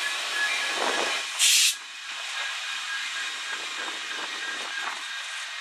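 Freight train rolling past at trackside: a steady rush of wheels on rail with faint high squealing tones, and a short, loud hiss about a second and a half in.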